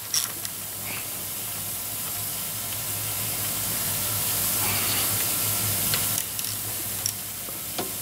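A steady hiss with a low hum under it, swelling slightly in the middle. A few light metal clicks near the start and near the end come from a hand tool working inside the recoil starter of an Evinrude 15 HP outboard.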